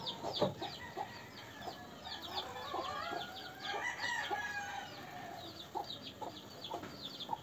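Rooster crowing, one long drawn-out call in the middle, over rapid high-pitched chirping of chickens or chicks.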